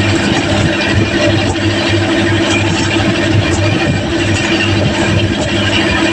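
Fishing boat's engine running steadily, with a broad hiss over it.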